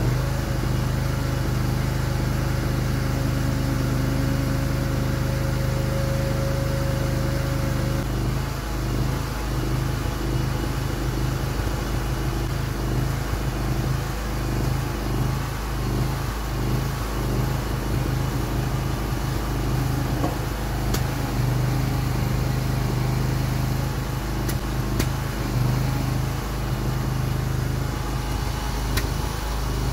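Engine of a homemade mini excavator running steadily, driving the hydraulic pump while the boom and arm are raised and extended. A higher steady whine over the engine stops about eight seconds in.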